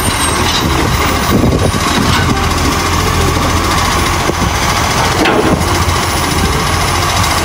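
Toy garbage truck running with a steady, loud, engine-like whirr.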